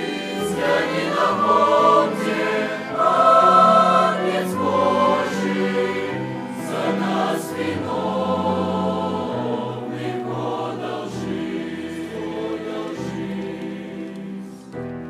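Youth choir singing a Russian hymn, voices in harmony over held low notes, the sound tapering off near the end.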